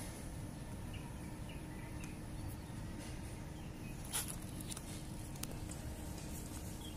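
Steady outdoor background noise with a few faint bird chirps, and a single short click about four seconds in.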